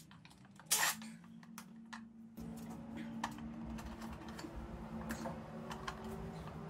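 A brief whirr of a cordless driver backing out a Torx screw from the plastic timing belt cover. This is followed by light clicks and taps of the loosened plastic cover and small screws being handled, over a steady low hum.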